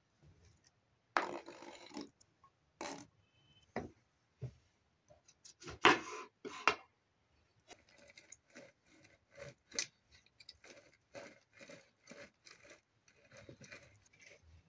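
A knife scrapes across a plastic cutting board, followed by a few sharp knocks. From about eight seconds in, a halved lemon is twisted back and forth on a plastic hand citrus juicer, making a rhythmic rubbing at about three strokes a second.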